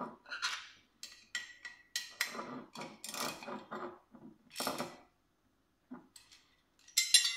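Hex key tightening the last bolt on a metal motorcycle tail-tidy bracket: scattered light clicks and rattles as the key turns and the bracket is handled, with a sharper metallic clink ringing briefly near the end.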